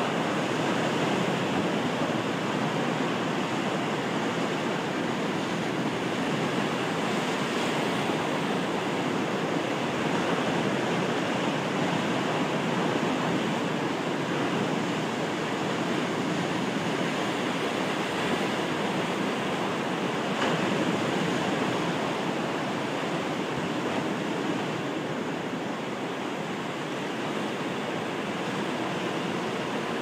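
Atlantic surf breaking and washing over rocky granite shore: a steady rush of water that eases a little near the end.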